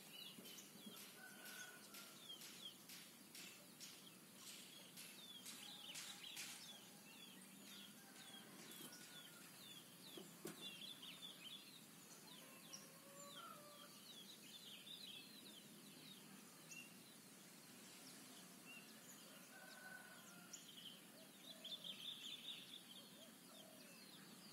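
Faint rural morning ambience: small birds chirping in quick, repeated downward notes, busiest early and again near the end, with chickens clucking now and then.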